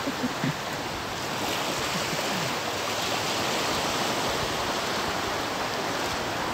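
Steady rushing noise of wind and choppy sea water, with no clear splashes or strokes.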